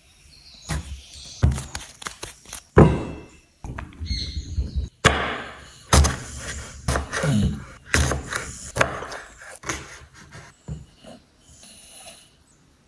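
A run of irregular thumps and knocks, several of them loud.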